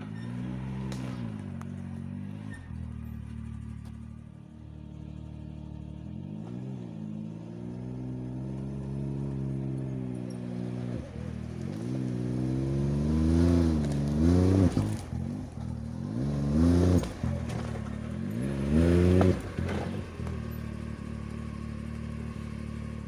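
Can-Am Maverick X3 X rc side-by-side's turbocharged three-cylinder engine running at low revs, then revved up and down several times in the second half as the buggy climbs over fallen logs.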